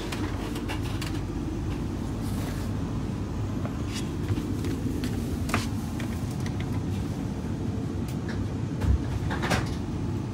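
Steady low hum of a stationary Vande Bharat Express chair-car coach's air-conditioning, with a few scattered light clicks and knocks and a single thump about nine seconds in.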